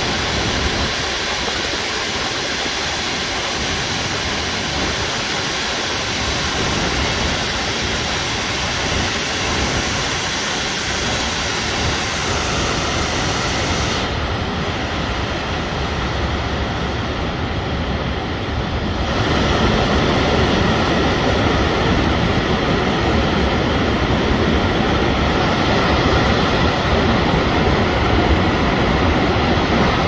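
Waterfall pouring into a pool, a steady rush of falling water that grows louder and fuller about two-thirds of the way through as the falls come closer.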